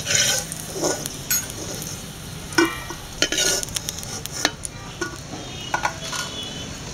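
Oil sizzling in a metal pan as browned garlic cloves are scooped out with a perforated metal skimmer, which scrapes and clinks against the pan several times.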